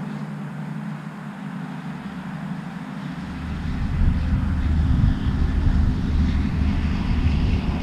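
Wind buffeting the microphone: a low, fluctuating rumble that grows louder about three seconds in. Underneath it runs the faint drone of the electric RC Spitfire's motor and propeller as it flies past.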